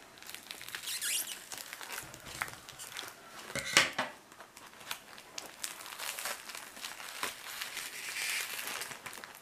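Foam packing sheets being peeled and pulled away from a foam egg tray, crinkling and tearing in irregular crackles, loudest a little under four seconds in.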